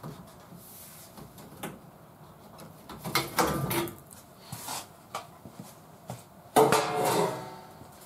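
Thin sheet-metal lower quarter patch panel being handled and held up against a truck's rusted quarter panel: a few scattered knocks and metallic clatters, with a louder ringing clatter about three seconds in and the loudest one near the end.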